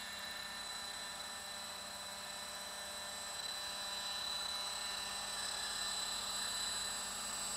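Roban EC130 800-size electric scale RC helicopter hovering with its main rotor at 1000 RPM head speed: a steady high-pitched whine from the motor and drivetrain over the rotor noise, growing slightly louder after about three seconds.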